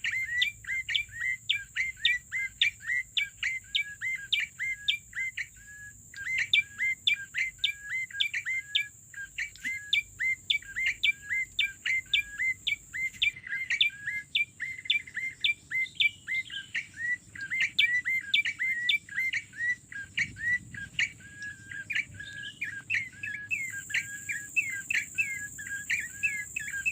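Rapid, repeated high bird chirps, several a second, in a very regular pattern that stays the same throughout.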